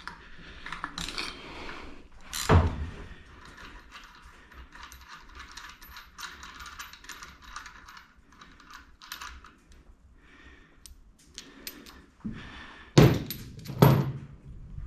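Hand ratchet clicking rapidly as a freed engine bolt is run out, with sharp metal clanks of tools about two seconds in and twice near the end.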